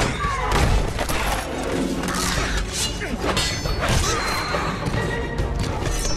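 Movie fight sound mix: dramatic score music under a rapid string of hits, crashes and metallic clashes from a close-quarters fight.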